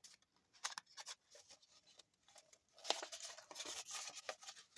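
Fine sandpaper rubbed by hand against a sterling silver ring, taking down a small bump left at the solder seam: faint scratchy strokes, a couple of short ones and then a longer run about three seconds in.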